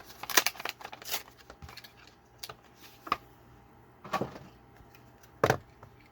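Plastic blister packaging and card backing being cracked and pulled open to free a diecast toy car: a run of irregular sharp snaps and crackles, with the loudest in the first second and about four and five and a half seconds in.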